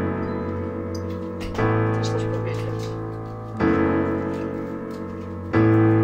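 Slow background music on piano: a new chord struck about every two seconds and left to ring out.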